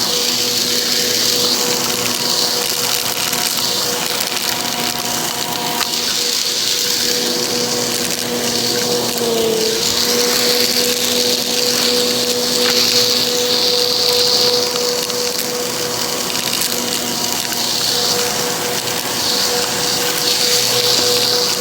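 Bissell vacuum cleaner running steadily, its motor hum under a loud rush of air that swells and fades. The motor's pitch dips briefly about halfway through, then recovers.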